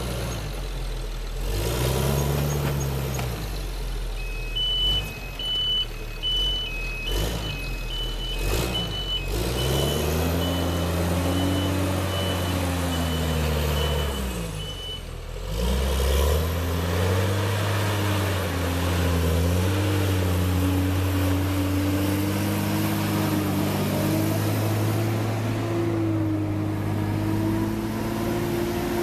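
Heavy vehicle engine revving up and down repeatedly, then running more steadily and slowly climbing in pitch. A reversing alarm beeps evenly, about twice a second, for some ten seconds in the first half.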